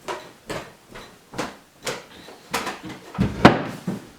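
A series of knocks, about two a second, with a heavier thump and the loudest knock a little after three seconds in.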